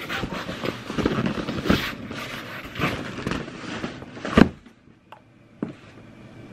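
A cardboard shipping box being handled and shifted on a countertop: rustling and scraping, with one loud thump about four seconds in, then a couple of light knocks.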